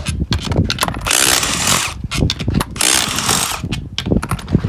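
Power impact wrench run in a series of short bursts, spinning the bolts out of a wheel's beadlock ring.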